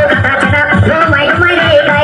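Loud dance music with a fast, steady beat and a wavering melody line over it.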